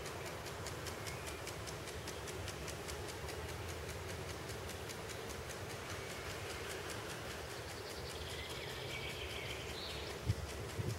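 Steady outdoor background noise with a low rumble. A faint high twittering comes in about two-thirds of the way through.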